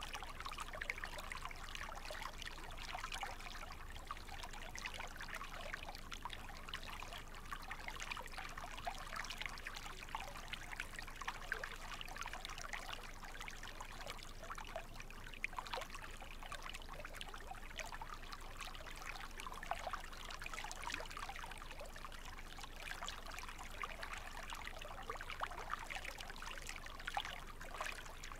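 Stream ambience: water trickling and babbling steadily, with a constant patter of small splashes.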